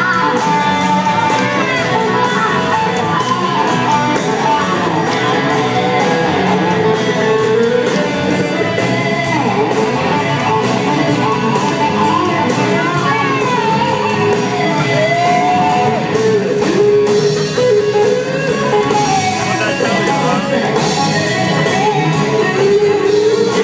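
Live rock band playing: an electric guitar lead with bending notes over drums and bass.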